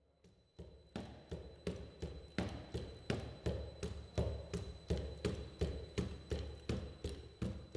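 Cassie bipedal robot's feet striking a treadmill deck in an even walking rhythm, nearly three footfalls a second, starting about half a second in. A steady low hum runs underneath.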